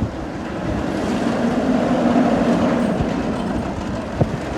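A roller coaster train running on its track: a steady rumble with a low hum, and a sharp click about four seconds in.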